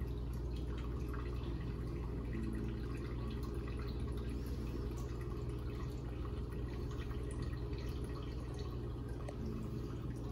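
Wort dripping and trickling from a mesh strainer of mashed grain into a stockpot below: the last of the liquid draining out of the grain after sparging. A steady low hum runs underneath.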